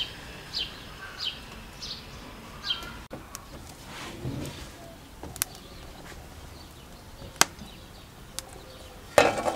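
A bird repeating short chirps, each falling in pitch, about every two-thirds of a second for the first three seconds. A few sharp isolated knocks follow, then a louder clatter near the end.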